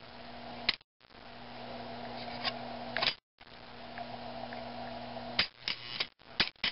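Electrical buzz from a model train setup powering a Lionel 3461 log dump car: a steady mains-frequency hum that switches on and off several times. Each stretch ends in a sharp click, about four times in all.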